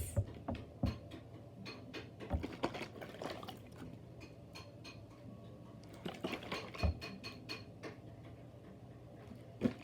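Homemade plastic water-bottle fidget, filled with water and tissue paper, being handled: scattered light plastic clicks and knocks with faint rustling between them.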